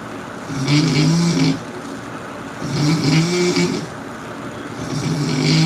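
A person snoring loudly, three snores about two seconds apart, each a low buzzing rattle with a breathy hiss.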